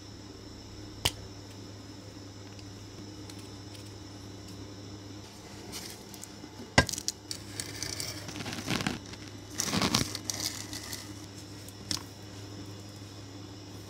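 Workbench handling sounds: a marker pen and a Damascus Chinese cleaver with a tape-wrapped handle being picked up and moved. There are sharp clicks about a second in, near seven seconds and near twelve seconds, with rustling and knocking in between, over a steady low hum.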